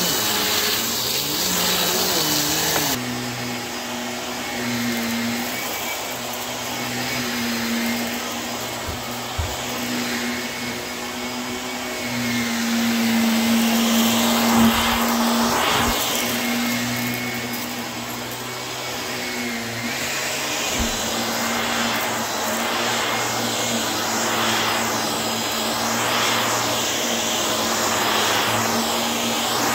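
Small Bissell upright vacuum cleaner running steadily, its motor giving a constant hum with a rushing hiss as it is pushed over a deep shag rug. A few brief knocks come about halfway through.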